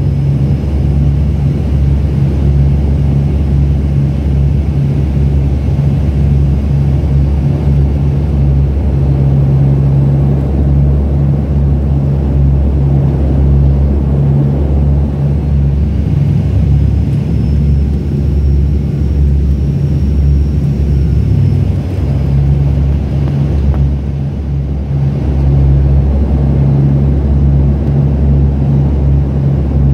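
Cabin drone of an ATR 72-200 turboprop on its landing approach: the twin Pratt & Whitney PW124B engines and their propellers give a loud, deep, steady hum, heard from inside the cabin.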